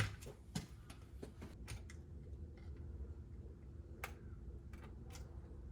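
Faint, irregular light clicks and ticks, a second or so apart, over a low steady hum, as of small tools or parts being handled.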